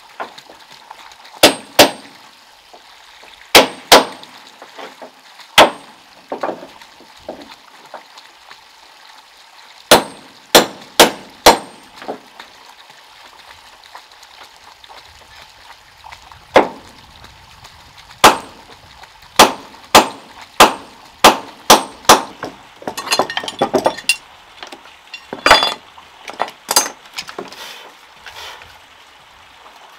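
Hammer blows on wood and nails, sharp strikes with a metallic ring, some single and some in quick pairs, at irregular intervals. A flurry of lighter knocks and rattles comes about two-thirds of the way through.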